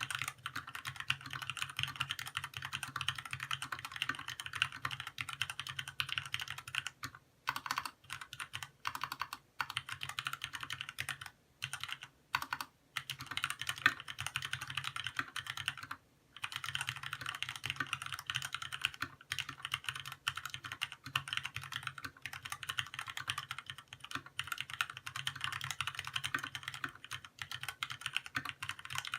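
Continuous fast typing on a Keywalker IFD68 mechanical keyboard with Cherry MX Red linear switches: a dense run of key clacks, broken by a few brief pauses.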